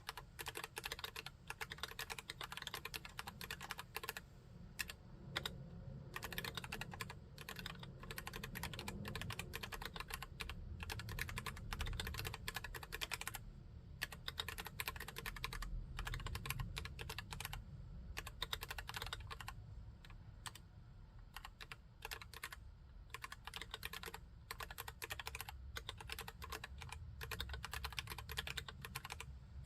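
Typing on a full-size Cox CA108BT mechanical keyboard with Gateron Brown tactile switches: rapid, continuous keystrokes with brief pauses between runs.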